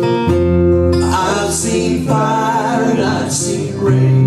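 Fingerpicked acoustic guitars playing a slow folk-pop accompaniment, with male singing coming in about a second in and holding long, wavering notes.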